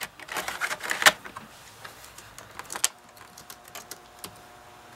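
A 3.5-inch floppy disk is pushed into a laptop's floppy drive with a few clicks and a firmer clack about a second in. Light keystrokes on the laptop keyboard follow. About three seconds in, the floppy drive starts up with a steady hum as it reads the disk.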